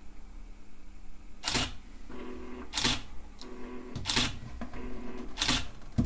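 DSLR shutter firing four times, about every 1.3 seconds, triggered by the Foldio smart turntable's infrared remote. After each shot a short low motor hum comes from the turntable stepping round to the next position.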